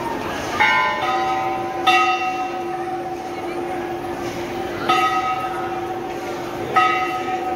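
Hanging brass temple bells being struck, about five irregularly spaced clangs. Each one rings on with a long, steady hum that overlaps the next.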